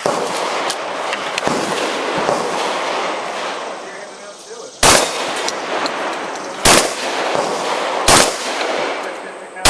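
12-gauge shotgun fired four times, about a second and a half apart.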